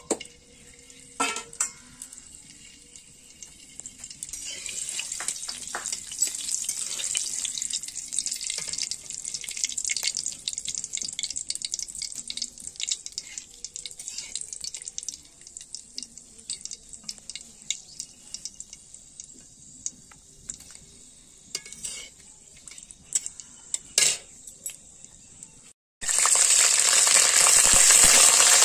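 Bay leaves and whole spices sizzling and crackling in hot oil in a metal kadai, with a metal spatula scraping and stirring. Near the end a ground paste is in the oil, and a much louder, denser sizzle takes over.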